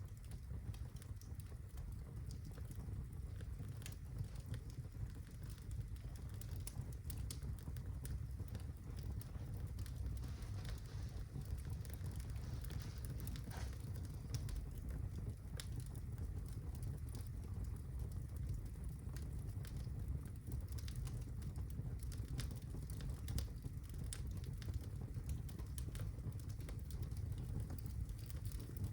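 Birch logs burning in a fireplace: a steady low rumble of flames with scattered sharp crackles and pops.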